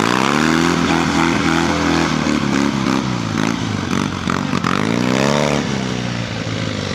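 Triumph TRW 500 cc side-valve twin motorcycle engine being worked through a muddy trials section. The revs rise and fall over and over as the rider blips the throttle.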